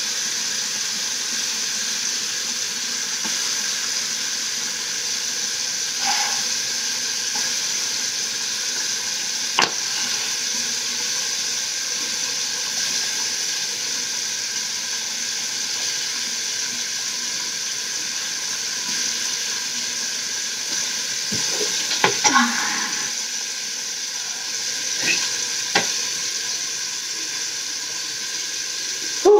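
Teeth being brushed with a manual toothbrush close up: a steady wet scrubbing hiss, with a few short clicks in the second half.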